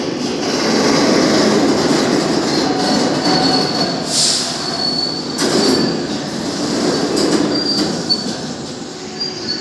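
R62 subway car pulling in on the shuttle's curved track: a steady rumble of wheels on rail, with thin high wheel squeal coming and going as it takes the curve. A brief burst of hiss comes about four seconds in.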